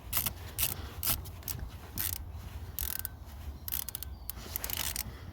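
Socket ratchet on a double extension clicking through a series of short back-and-forth strokes, tightening the clamp on the negative battery terminal.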